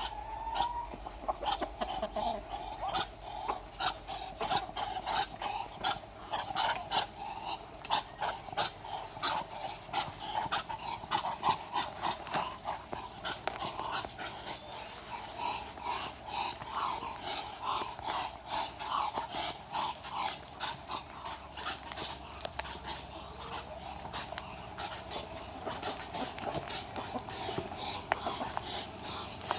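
Muscovy ducks hissing in a rapid run of short, breathy puffs, several a second, with no break.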